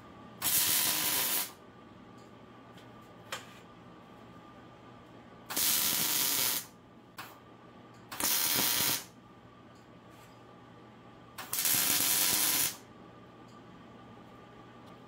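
Millermatic 140 MIG welder running four short welds on steel skid-plate tubing, each burst of hissing arc noise lasting about a second.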